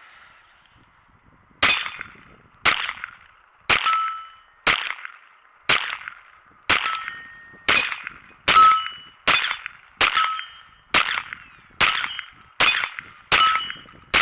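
Glock 44 .22 LR pistol firing CCI Mini-Mag rounds in a steady string of sharp shots, each followed by a short metallic ring. The shots come about once a second, then quicken to about two a second toward the end.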